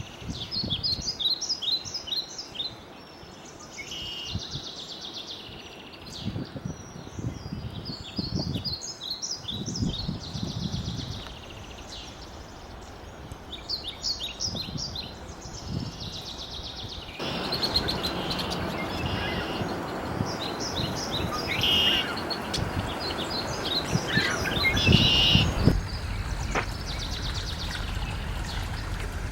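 Songbirds singing: short phrases of quick, high notes repeated every few seconds. Low background noise runs underneath and grows louder after about seventeen seconds.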